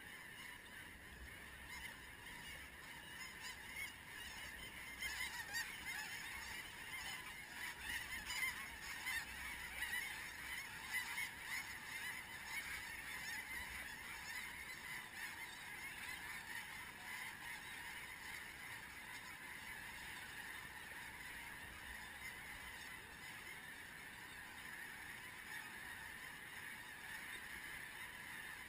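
A huge flock of snow geese calling overhead: a dense, continuous din of many overlapping calls, swelling louder about five seconds in and easing somewhat in the second half.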